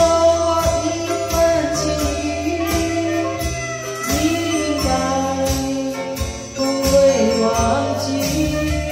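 Chinese-language karaoke song playing from a TV speaker: a singing voice over a band backing with a steady beat.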